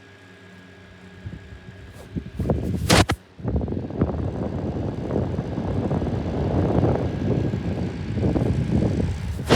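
Unbranded 12-inch plastic box fan: a steady low motor hum, then a sharp click about three seconds in followed by a loud, irregular rushing rattle that runs on until another sharp click at the end.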